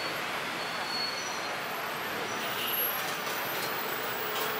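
Busy city street ambience: a steady wash of traffic noise with people's voices in the background.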